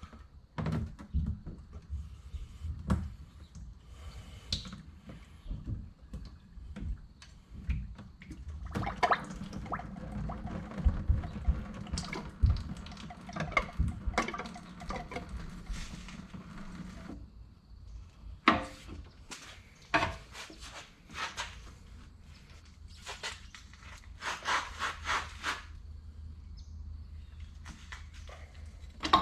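Hydraulic oil being drained out of a skid steer tilt cylinder, with a steady stretch of liquid running in the middle, amid irregular knocks and clanks of metal parts and tools.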